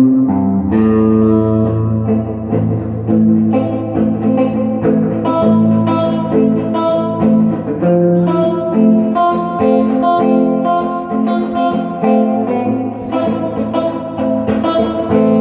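Gibson Les Paul electric guitar with Classic 57 humbucking pickups, played through an EarthQuaker Devices Ghost Echo reverb pedal into a Fender Pro Junior III valve amp: a continuous passage of picked single notes and chords, with new notes struck several times a second.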